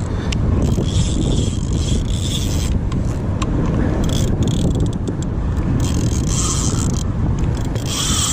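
Spinning fishing reel being cranked to bring in a hooked ray, its gears whirring in repeated spells, over a steady low rumble.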